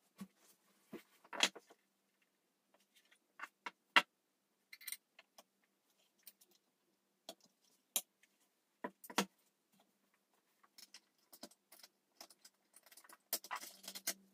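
Scattered clicks, taps and light knocks as a motherboard fitted with a tower CPU cooler is handled and turned over on a table, with a short burst of scraping near the end as it is set up on its edge.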